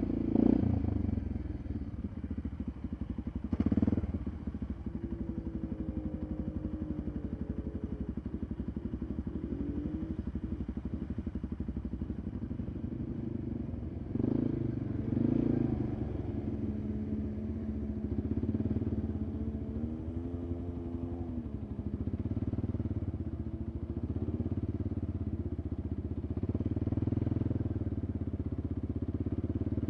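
Polaris ATV engine running while riding a rough trail, its pitch rising and falling several times with the throttle. A few sharp knocks and clatters stand out, the loudest about four seconds in and near fourteen seconds.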